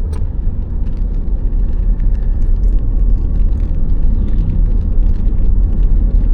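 Steady low road and tyre rumble heard from inside a moving car's cabin, with faint light ticks above it.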